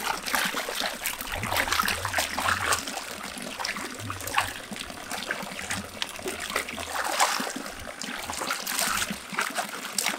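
Water splashing and trickling in a shallow fish pond as a fishing net is worked through it to catch fish, with many quick splashes.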